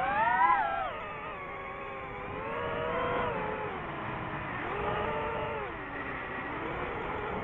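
DJI FPV drone's motors and propellers whining, the pitch sweeping up and down as the throttle changes: a quick rise and fall in the first second, then a deep dip and recovery around five to six seconds in.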